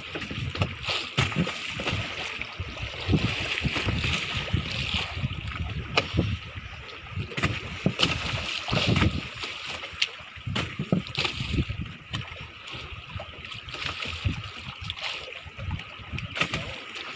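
Water slapping and splashing against the hull of a small boat at sea, with uneven low rumbling and a few sharp clicks.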